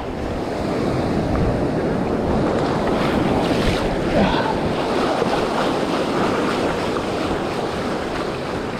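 Ocean surf washing onto the beach, with strong wind buffeting the microphone in a steady rushing noise.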